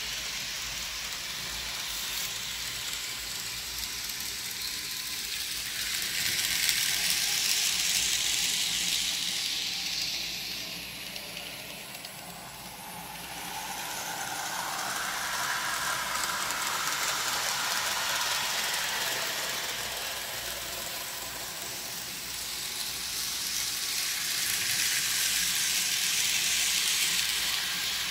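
Kato N scale model freight train running on Kato Unitrack, a steady whirring, rattling hiss of wheels on the rails that grows louder twice as the train comes by.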